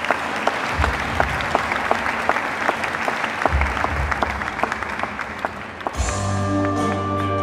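Audience applauding, a dense spread of handclaps; about six seconds in, music with held notes over a low bass starts.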